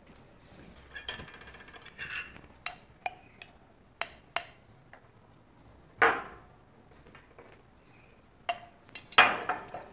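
Metal spoon clinking and scraping against a small glass jar while scooping out tutti-frutti, with a string of sharp, irregularly spaced clinks.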